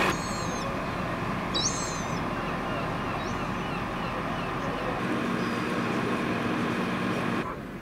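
Steady drone of parked fire engines idling, with short bursts of high bird chirping at the start and about two seconds in. The level drops suddenly near the end.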